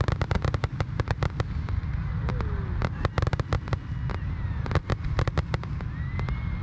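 Fireworks going off: rapid, sharp crackling pops in dense clusters over a steady low rumble.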